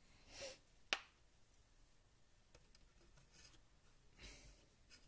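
Quiet handling noises from a coax probe cable being worked into an opened CD V-700 Geiger counter: a couple of brief rustles and rubs, with one sharp click about a second in.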